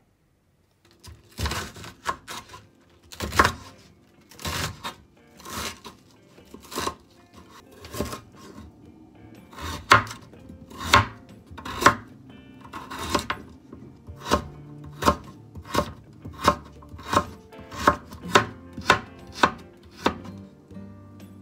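Kitchen knife chopping food: separate strikes about a second apart at first, quickening to about two a second in the second half.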